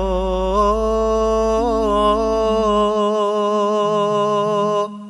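Javanese song: a singer holds one long, slightly wavering note over instrumental backing, with a deep bass note under the first three seconds. The music drops away just before the end.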